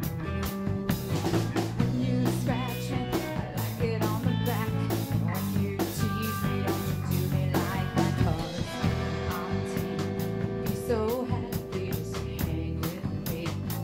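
A rock band playing live: a woman singing lead over acoustic and electric guitars and electric bass, with a drum kit keeping a steady beat.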